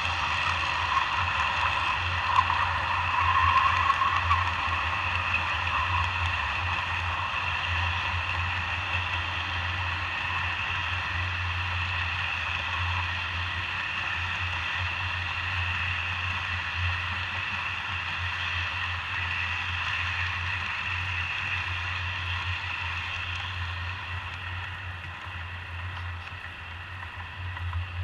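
Model train passenger cars rolling steadily past on the track, a continuous rolling rumble of wheels on rail with a low hum under it, which eases off near the end as the last car passes.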